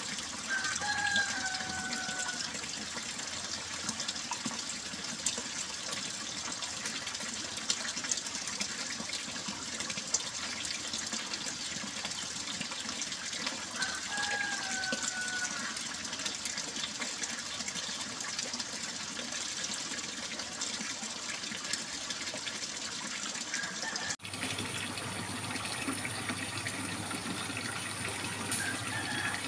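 Running water babbling steadily. A short falling whistle is heard twice, near the start and about halfway. Near the end the sound breaks off for a moment and resumes with a fuller, lower water sound.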